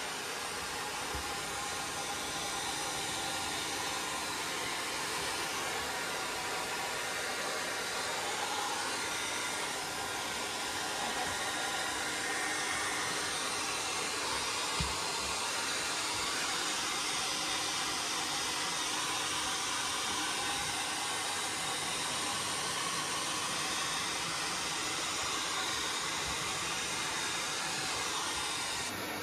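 Two pet dryers running together, one of them a floor-standing blower with a hose, giving a steady rushing blow while a dog is dried.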